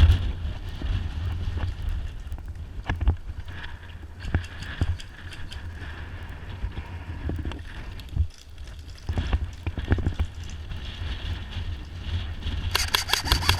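Movement noise: a steady low rumble of wind and handling on the camera's microphone, with scattered knocks and rustles. Near the end comes a fast run of sharp clicks.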